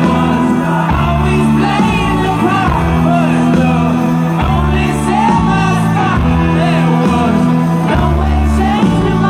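Live rock band playing loud through a stage PA, heard from among the audience: a bass line stepping from note to note about once a second under guitars, with shouts from the crowd.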